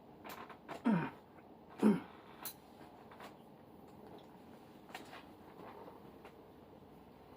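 Two short groans from a person receiving massage, each falling in pitch, about a second apart, with a few faint clicks or taps after them.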